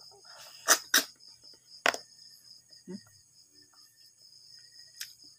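Crickets chirping in a steady, high, pulsing chorus. Over it come a few sharp clicks or smacks, three close together in the first two seconds and one more near the end.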